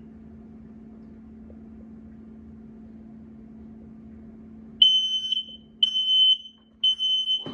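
A steady low hum, then a Kidde KN-COSM-BA smoke and carbon monoxide alarm goes into its smoke alarm about five seconds in. It sounds three high, piercing beeps about a second apart: the temporal-three pattern that signals smoke.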